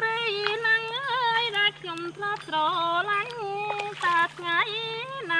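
A woman singing a melody in a high voice, with held notes that waver and step between pitches, over a faint steady low hum.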